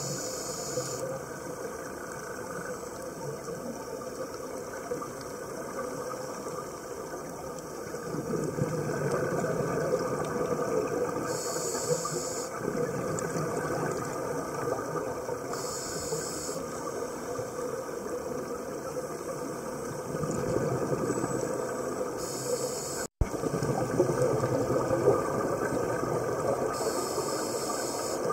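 Scuba diving heard through an underwater camera: a steady watery hiss and rumble, with scuba regulator exhalation bubbles hissing out roughly every four seconds. The sound cuts out for an instant about two-thirds of the way through.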